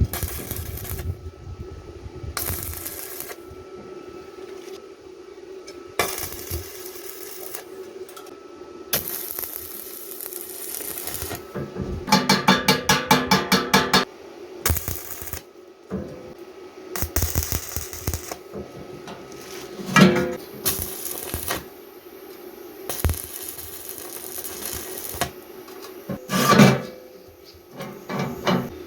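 Steel wire and a metal bending tool clanking and knocking, with a quick run of about seven strikes a second about halfway and two sharp metallic knocks later, over a steady hum.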